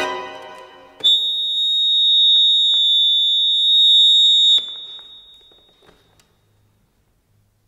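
Jupiter bayan (button accordion) sounding a loud chord, then about a second later a single piercing high note held for about three and a half seconds. The note swells and stops abruptly, and the room's reverberation dies away to near silence.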